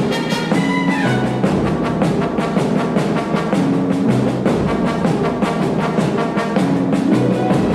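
Orchestral music with brass over a quick, steady rhythm.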